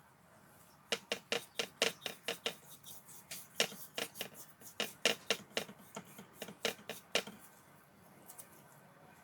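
A quick run of light, sharp taps or clicks, about four a second, in two bursts with a short pause between, stopping about two seconds before the end.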